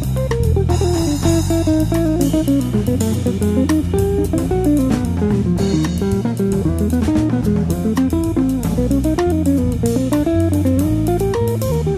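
Background music: an instrumental track led by a plucked guitar playing a quick, running melody over bass guitar.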